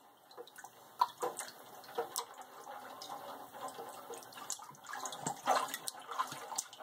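A baby splashing with his hands in a shallow kitchen sink full of bathwater: irregular small splashes and drips, growing busier about five seconds in.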